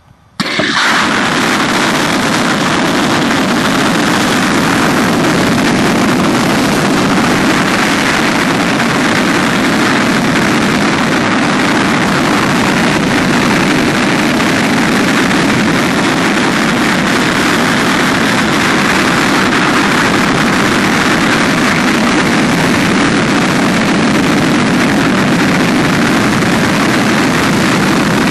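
Stainless-steel rocket engine on a ground test stand lighting about half a second in and then firing steadily at full throttle, a loud, even rush of exhaust noise.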